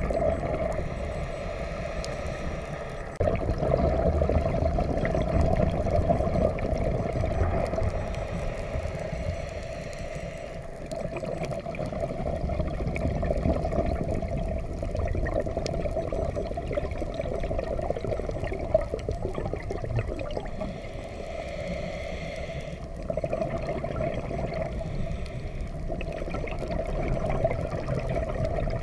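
Underwater sound through a camera housing: a scuba diver's exhaled bubbles gurgling and rushing, swelling and easing in long surges several seconds apart.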